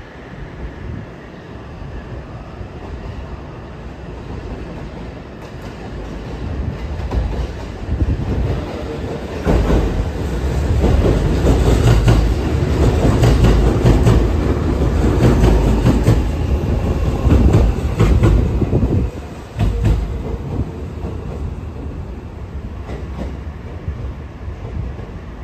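A JR Central 315 series electric train running past at close range. It grows louder as it approaches, and from about ten seconds in the wheels clatter steadily over the rail joints and points. The sound drops off sharply near the end as the train moves away.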